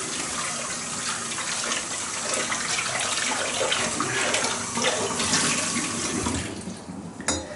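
Kitchen tap running into the sink while a saucepan is rinsed and washed. The water stops about six and a half seconds in, and a short knock comes near the end.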